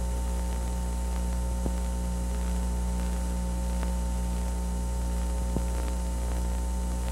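Steady electrical mains hum with a faint hiss on the recording's audio line, and no programme sound. Two faint ticks come about a second and a half in and again near the end.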